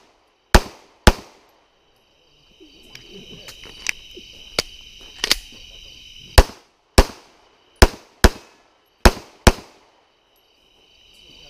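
Handgun firing: two shots, then a few seconds of magazine-change clicks and rattles, then six shots fired in three quick pairs.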